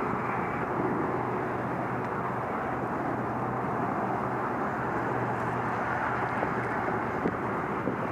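Steady, even hiss of road traffic on the causeway bridge nearby, with a few faint clicks near the end.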